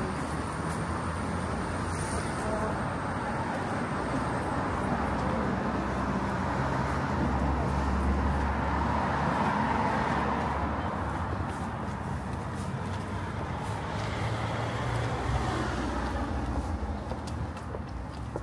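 Street traffic: a steady wash of passing cars with a low rumble, swelling about halfway through as a vehicle goes by, and again briefly near the end.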